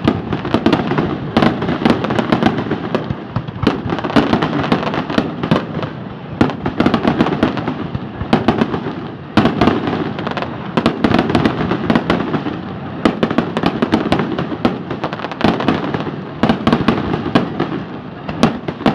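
Aerial fireworks going off without pause: a dense run of bangs and crackles, with loud clusters of bangs every few seconds.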